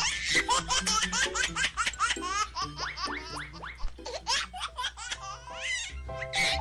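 Rapid, high-pitched laughter in a fast string of short bursts, over background music.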